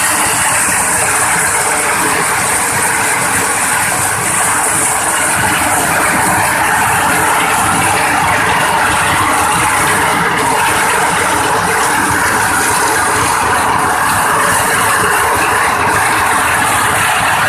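Corn sheller for unhusked maize cobs running steadily, with a dense, continuous mechanical clatter.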